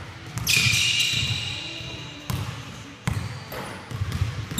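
Basketballs being dribbled on a hardwood gym floor: repeated thumps, echoing in the hall. About half a second in, a sharp high-pitched clang rings and fades over a second or so.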